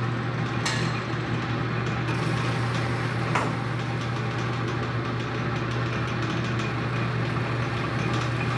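Small metal lathe running steadily with an even motor hum while the cutting tool faces off the end of the metal workpiece in the chuck, with a couple of short scraping sounds from the cut, one about a second in and one about three seconds in.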